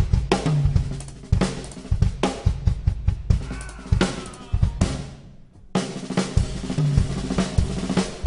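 Band music led by a drum kit, with bass drum, snare and cymbals over a low bass line. It breaks off briefly about five seconds in, then resumes.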